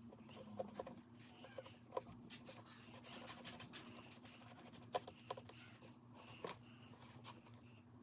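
Faint, scattered clicks and scratches of fingers working at a plastic laptop bezel, picking at leftover tape, over a steady low hum.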